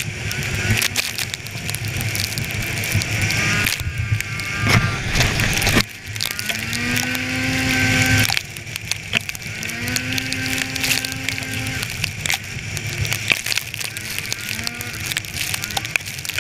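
Polaris snowmobile running at trail speed under a steady rush of wind on the microphone. Its engine note climbs and holds twice, about six and ten seconds in.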